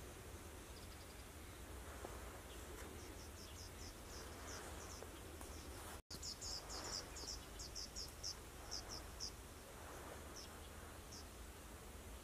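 Quiet rural dawn ambience with runs of short, high-pitched chirps, several a second, from small wildlife. There is a brief break in the sound about halfway, and the chirping is densest just after it.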